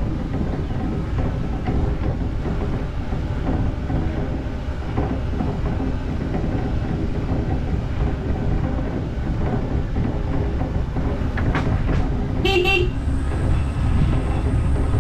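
Open-top Moke car driving: a steady rumble of engine, tyres and wind on the microphone. Near the end a car horn gives one short toot.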